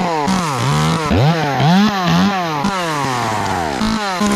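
Two-stroke chainsaw revved over and over, its pitch climbing and then sliding down after each burst, as it cuts limbs during tree pruning.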